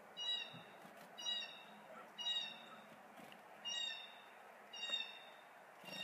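A bird calling over and over, a short harsh note about once a second.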